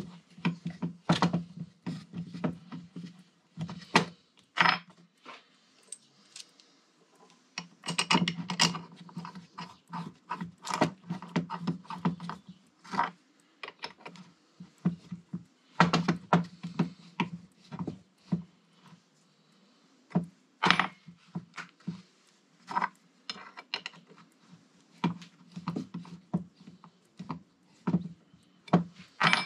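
Small metal parts and hand tools clinking and knocking in irregular clusters of sharp clicks, as brake caliper bolts and pins are handled and fitted on a workbench.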